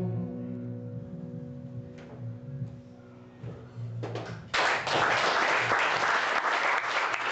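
An acoustic guitar's final chord rings out and fades, with a few soft low notes. About four and a half seconds in, audience applause starts and carries on loudly.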